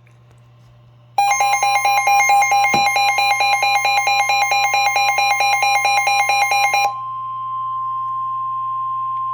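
The NOAA Weather Radio warning alarm, a steady tone near 1 kHz, starts about a second in. Over it, a rapid on-off electronic alarm of several stacked beeping tones sounds. About seven seconds in, the beeping stops and the single steady alarm tone continues alone.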